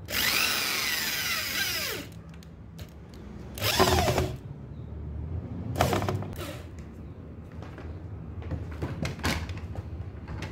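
Power drill driving screws into the rims of plastic crates, run in several bursts. A long run of about two seconds opens, its whine sliding in pitch. Shorter runs follow a little before four seconds and around six seconds, then a few brief ones near the end.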